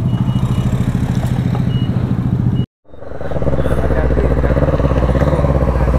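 Motorcycle engine idling steadily, with an even pulse. The sound cuts out completely for a moment about three seconds in, then the idling goes on.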